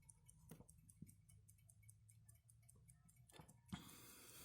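Silver Alpina pocket watch ticking faintly and quickly, about five ticks a second. A few soft knocks and a rustle of handling come in, mostly near the end.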